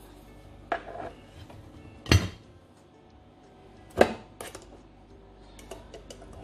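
Hard clatter and knocks of a utensil against the metal grid plates of an electric waffle iron as cooked waffles are lifted out: two loud knocks about two seconds apart, with lighter clicks around them.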